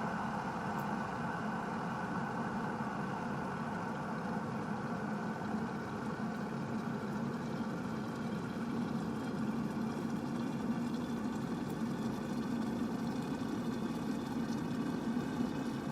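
Glass electric kettle heating water, a steady rumbling hiss.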